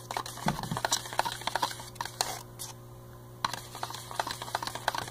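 A spoon stirring a thin glue-and-water mixture in a plastic cup, clicking and scraping against the cup in quick, irregular taps, with a pause of about a second midway.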